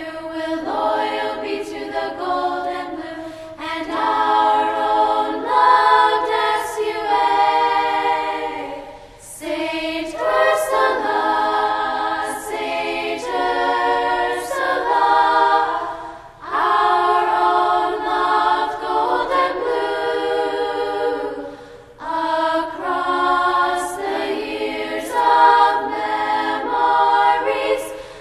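Background music: a choir singing unaccompanied, in long phrases separated by short pauses, with no bass or drums.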